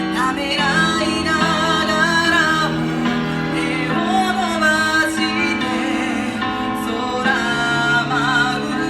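A song: a voice singing with wavering vibrato over sustained chords of instrumental accompaniment.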